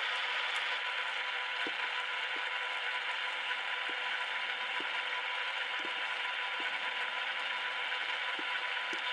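HO-scale model diesel locomotive running, with a steady mechanical whir from its drive and faint clicks about once a second.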